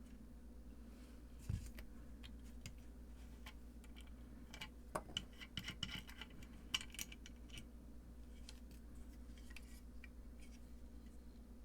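Small hardware of a guitar effects pedal kit being handled and fitted by hand: scattered light clicks and taps, most of them between about four and seven seconds in, over a steady low hum.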